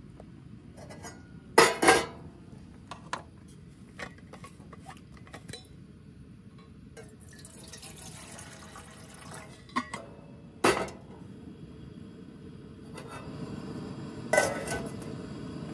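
A lightweight metal camping pot clinking against a camp stove's wire grate, with sharp metallic knocks twice near the start. Water is poured from a bottle into the pot in the middle, and the pot is set back down on the grate with another clink near the end.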